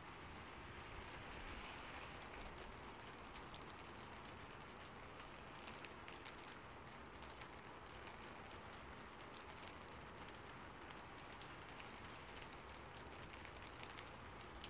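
Faint steady hiss with soft, irregular little taps, several a second: a bundle of cotton swabs dabbing white acrylic paint onto canvas.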